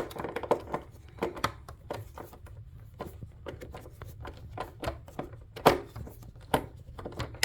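Hand screwdriver backing out a monitor-stand screw: a string of irregular clicks and taps of the tool on the screw and the metal bracket, a couple of them sharper near the end.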